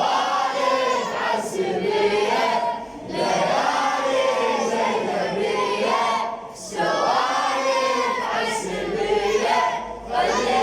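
A chorus of voices singing a Husseini latmiya refrain in unison, in several sung phrases with brief pauses for breath between them.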